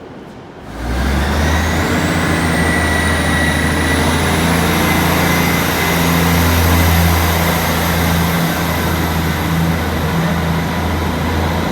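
Passenger train running close by, starting suddenly about a second in: a steady low drone with a high whine that rises over the next few seconds and then holds.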